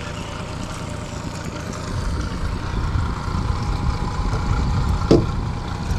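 Boat's outboard motor running steadily, a low rumble that grows slightly stronger about two seconds in. A brief sharp sound comes about five seconds in.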